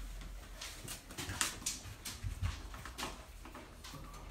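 Young puppies whimpering softly amid a scatter of short scratchy, scuffling sounds as they move about.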